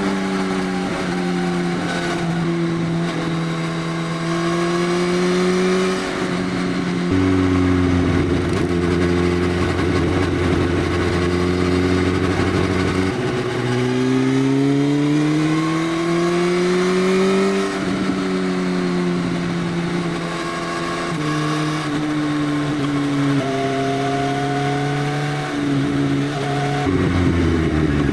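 Motorcycle running on an aftermarket Arrow full exhaust system with the dB killer removed. The engine note holds steady, shifts up and down in steps several times, and climbs steadily as the revs rise about halfway through.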